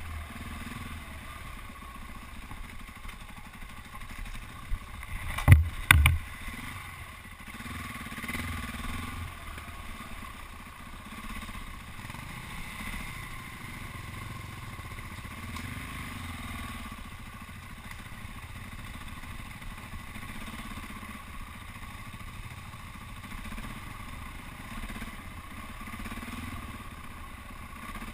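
KTM four-stroke single-cylinder enduro motorcycle engine running steadily on a muddy woodland trail ride. About five and a half seconds in, two sharp knocks close together stand out above the engine as the loudest sounds.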